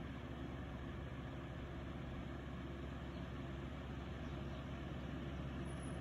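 Steady low hum and hiss of room background noise, with no distinct events.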